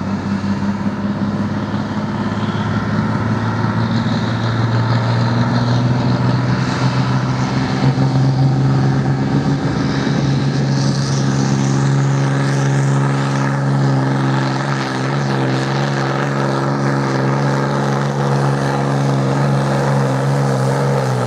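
A pulling vehicle's engine running at high, steady revs, holding a nearly constant pitch, wavering slightly near the end.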